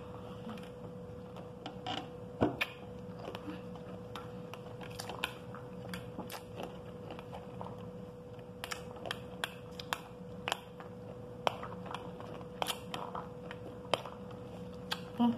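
Someone eating pomegranate arils: irregular sharp crunches and clicks of chewing the hard seeds, with a metal spoon clinking against a glass plate.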